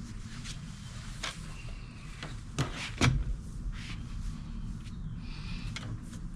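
Knocks and clicks of a carbon-steel bike repair stand being handled as its folding legs are spread out, with two louder clunks near the middle, over a steady low hum.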